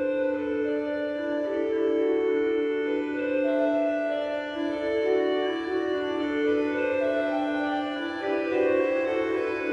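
Organ music: sustained chords held and moving slowly from one to the next, with no bass line.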